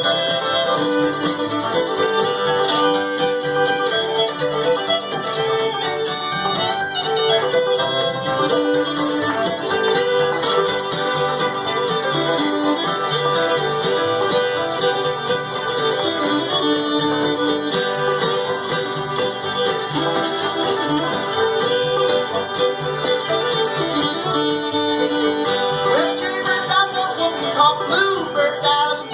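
Live string band playing an old-time fiddle tune instrumentally, the fiddle leading over a plucked-string accompaniment.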